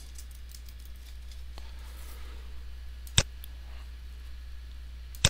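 Computer mouse clicks while working in software: one sharp click about three seconds in and another near the end, over a low steady hum.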